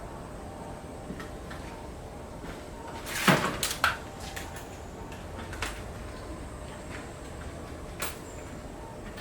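A few knocks and clatters of things being handled: a short scrape with a run of clacks about three seconds in, the loudest part, then single knocks a couple of seconds and about five seconds later.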